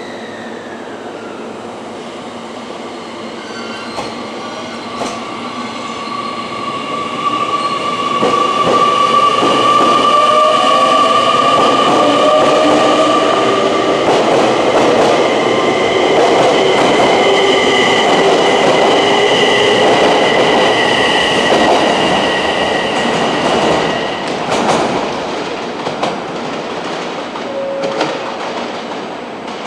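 JR Kyushu 885 series electric express pulling out and running past: a whine in several steady tones, with wheels clicking over rail joints. It grows louder as the train picks up speed and the cars pass, and the whine stops about 24 seconds in, leaving quieter train noise.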